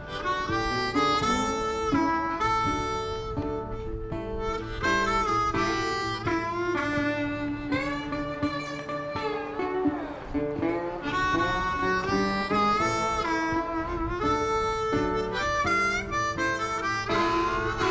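Background music: a harmonica melody over acoustic guitar, blues-style.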